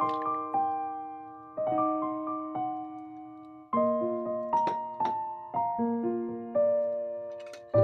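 Slow, gentle piano background music: single notes and chords struck one after another and left to fade.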